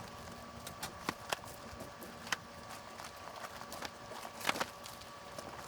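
Footsteps crunching on a gravel site: irregular sharp crunches and clicks, the loudest about four and a half seconds in, over a faint steady hum.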